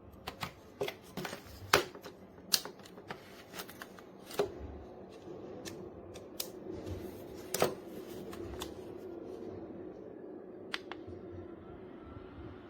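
Irregular sharp clicks and knocks of small objects being handled, over a faint steady hum.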